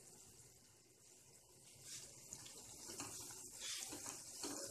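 Masala gravy paste frying in oil in a nonstick wok, a faint sizzle that grows louder about two seconds in. A spatula stirs and scrapes the pan near the end. This is the bhuna stage, frying the masala down on medium heat.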